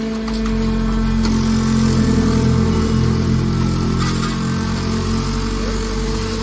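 Hydraulic scrap metal baler running: its motor and pump give a steady hum, which grows heavier from about half a second in as the ram pushes the compressed aluminum scrap bale out of the chamber. A few brief clicks.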